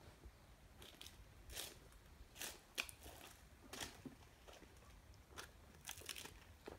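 Footsteps crunching on dry fallen leaves and twigs: a string of faint, irregular crunches.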